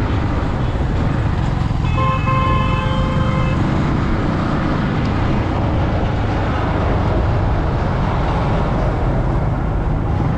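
Yamaha MT-15's 155 cc single-cylinder engine running steadily at low road speed, with wind and road noise. A vehicle horn sounds once for about a second and a half, about two seconds in.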